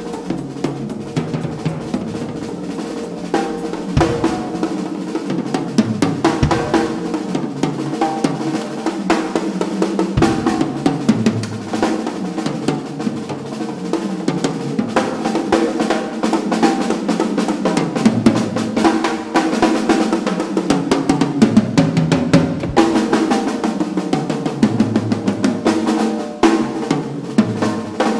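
Big-band jazz drum solo on a Pearl drum kit: dense, fast strokes across snare, toms, bass drum and cymbals.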